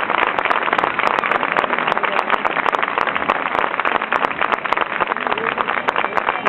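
Steady, dense crackling hiss from a heavily restored camcorder soundtrack, with faint voices showing through now and then.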